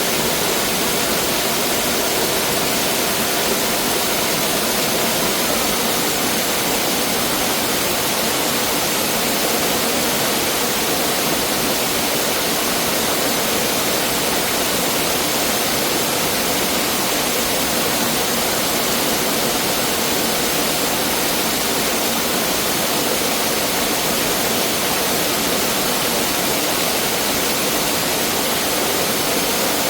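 Mountain valley stream rushing over rocks, a steady, dense rush of water.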